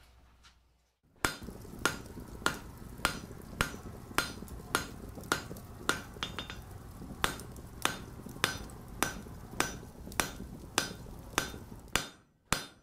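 Steady rhythmic hammer blows on an anvil, about one and a half to two strikes a second, each with a short metallic ring. They begin about a second in.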